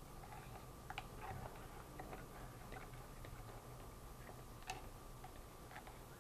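A stir stick clicking and scraping lightly against the inside of a paint pail as thinned gesso is stirred, faint throughout, with one sharper tap about three quarters of the way in.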